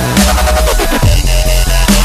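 Dubstep-style electronic music without vocals: heavy bass with falling synth sweeps, then a short high synth note repeating several times a second from about a second in.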